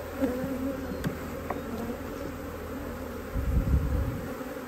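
Honey bees buzzing in a steady hum over an open hive, with a couple of faint clicks about a second in and a low rumble near the end.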